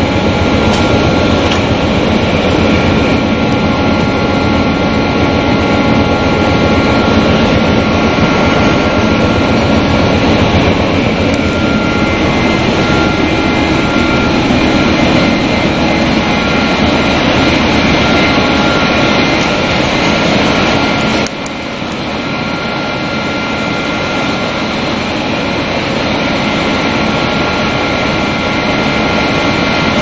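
Double-twist wire bunching machine (1000 type) running at speed: a loud, steady mechanical noise with several steady whining tones over it. About two-thirds of the way through the low rumble drops away suddenly and the sound slowly builds back up.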